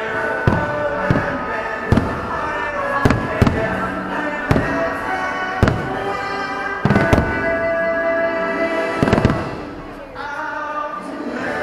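Distant fireworks bursting in about ten sharp bangs at irregular intervals, over the fireworks show's soundtrack music playing continuously.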